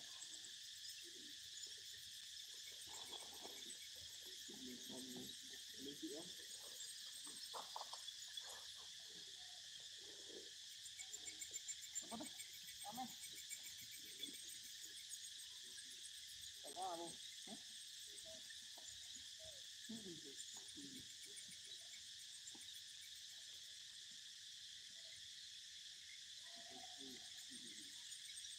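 Faint, steady chorus of insects shrilling in the forest, with scattered faint low sounds underneath.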